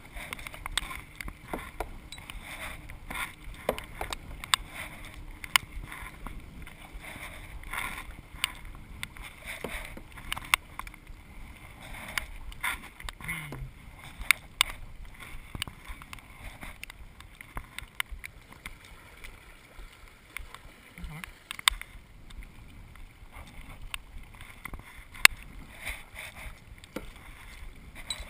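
Kayak paddling: paddle blades dipping and splashing in the water, with sharp knocks at irregular intervals.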